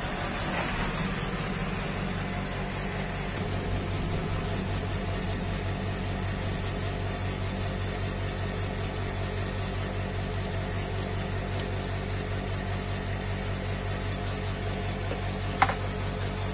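A steady, low, engine-like mechanical hum, with one sharp click near the end.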